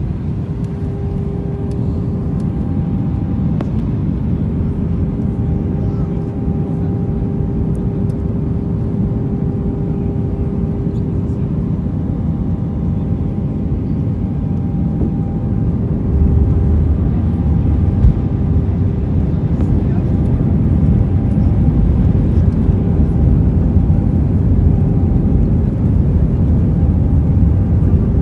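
Airliner cabin noise on the descent with the flaps extended: a steady low roar of engines and airflow with a steady hum tone over it. The low rumble grows louder a little past halfway through.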